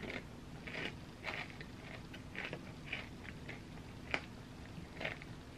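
Close-miked chewing of a mouthful of ice cream sundae: soft, wet, irregular mouth sounds, with a metal spoon clicking once against the glass bowl about four seconds in.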